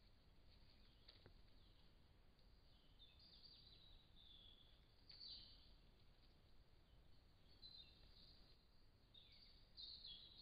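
Faint birdsong: short high chirps and twitters with quick falling notes, coming in scattered phrases over a low hiss of a trail camera's microphone.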